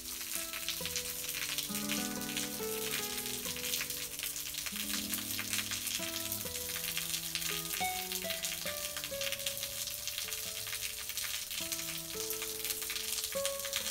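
A thin trickle of water splashing down a rock face in a steady crackling hiss, under calm background music of slow held notes.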